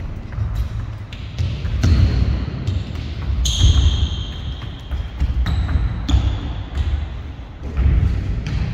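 Running footsteps thudding on a sports-hall floor and sneakers squeaking as an athlete sprints, jumps and changes direction, with several short squeaks and one longer squeal about three and a half seconds in.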